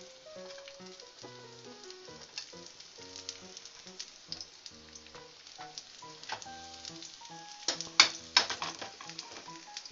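Sliced garlic sizzling and crackling in hot oil in a frying pan, with a few loud sharp clicks about 8 seconds in as the pan is handled. Background music plays underneath.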